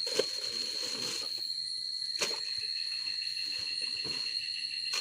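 Night crickets trilling in a steady high, even tone, with a second, lower insect tone joining about halfway through. Two short sharp knocks come near the start and again about two seconds in.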